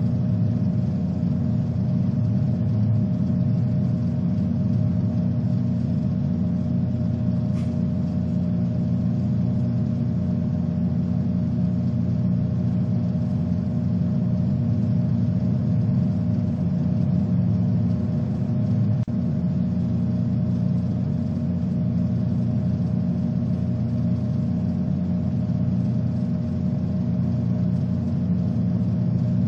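Steady low mechanical hum with a constant mid-pitched tone over it, the ambient drone of a machine room such as a data hall.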